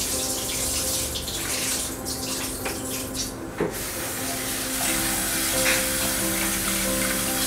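Water running into a steel kitchen sink as rice is rinsed: cloudy rinse water poured out of a steel pot, then the tap running into the pot of rice. The water breaks off briefly about three and a half seconds in, with a single knock, then runs again. Background music with held notes plays underneath.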